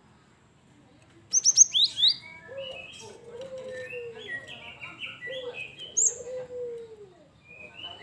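Cinereous tit (gelatik batu) calling: a loud burst of sharp, steeply falling high notes about a second in, then a busy run of twittering notes with a short high note near the middle. A lower, arching note repeats beneath the twittering.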